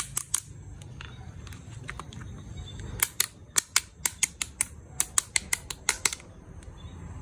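Sharp clicks of a hard plastic toy being handled: three at the start, then a quick run of about a dozen, roughly four a second, from about three to six seconds in.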